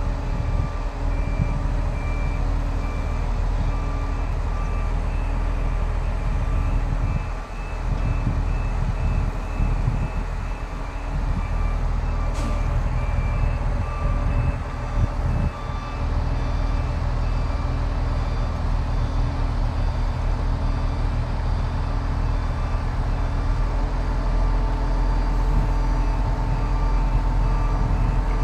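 Mobile crane's diesel engine running steadily under load, with a short electronic warning beep repeating over it. A single sharp click sounds about halfway through.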